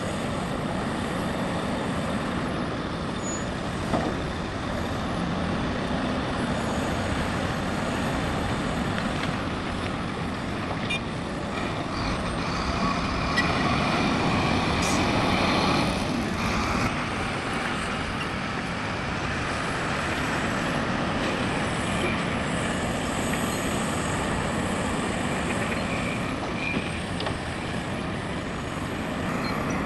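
Heavy diesel machinery running steadily, from excavators and dump trucks at work. It grows louder for a few seconds around the middle, with a short knock about four seconds in.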